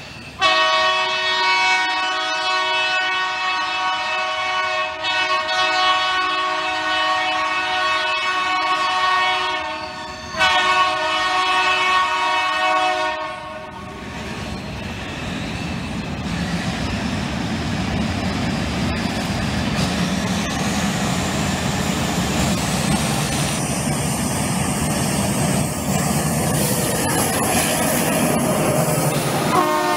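GE U11B diesel locomotive sounding its multi-tone air horn in two long blasts, the first about nine seconds and the second about three. The horn is followed by the locomotive's diesel engine and its wheels rumbling over the rails, growing louder as it approaches and passes close by.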